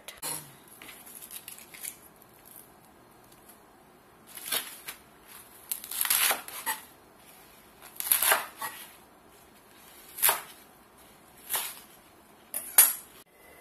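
Large kitchen knife slicing through a bundle of crisp Indian lettuce leaves on a wooden cutting board: about six slow cuts, one every second or two, some drawn out as a longer rasp.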